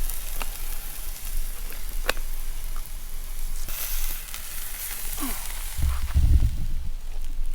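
Tri-tip steak sizzling on a charcoal and wood grill: a steady hiss with a few sharp pops. A brief low rumble about six seconds in.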